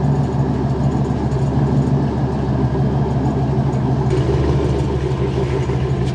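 The 454 (7.4 L) big-block V8 of a 1998 GMC K3500 idling steadily through a freshly installed 3-inch mandrel-bent dual exhaust with an H-pipe and aftermarket mufflers: a pretty good exhaust note.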